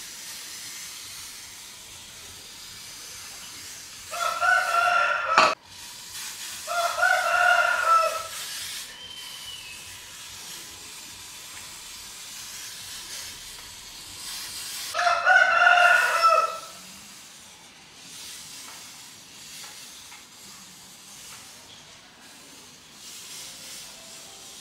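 A rooster crowing three times, each crow lasting about a second and a half, with a sharp click at the end of the first. A steady faint hiss runs underneath.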